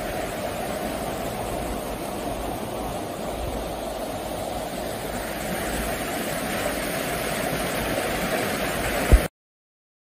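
Spring-fed river running fast over rocks in rapids, a steady rushing of water. Just before the end there is a short sharp thump, then the sound cuts off suddenly.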